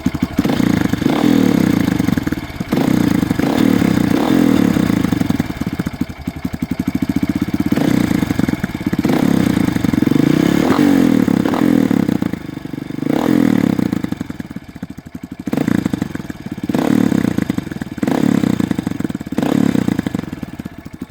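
Honda CRF230F's single-cylinder four-stroke engine running through an aftermarket slip-on exhaust with the spark arrester fitted, revved repeatedly with throttle blips and dropping back between them.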